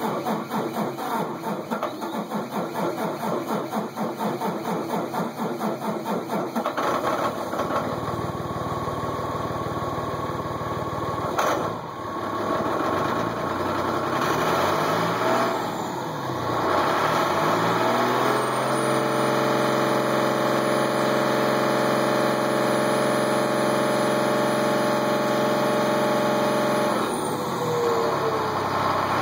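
School bus engine, heard at the exhaust on a cold winter morning, cranking with a fast pulsing until it catches about seven seconds in. It is then revved up and down, held at a steady high rev for about eight seconds, and drops back near the end.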